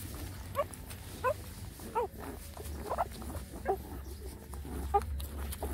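Nursing puppies squeaking and whimpering: about six short, high squeaks, roughly one a second.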